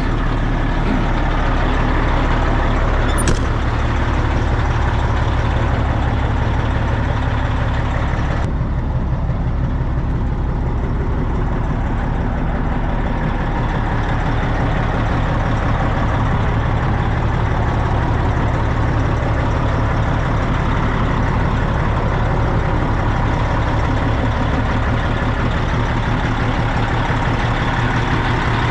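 Peterbilt semi truck's diesel engine idling steadily as it warms up and builds air pressure, with a single short click about three seconds in.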